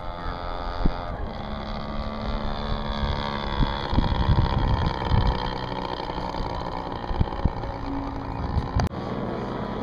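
Small piston engine of a propeller-driven RC model airplane droning steadily in flight, with wind rumble on the microphone. A sharp click comes near the end.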